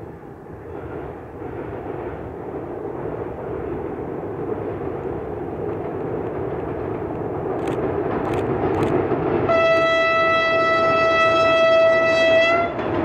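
ADtranz DE2000 diesel-electric locomotive hauling a passenger train, its engine and running noise growing steadily louder as it approaches. About two-thirds of the way in it sounds one long horn blast of about three seconds, which cuts off near the end.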